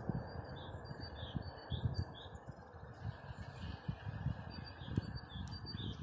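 Small songbirds chirping in quick series of short, high notes, with a pause around the middle. Beneath them runs a steady rushing background noise with irregular low rumbles.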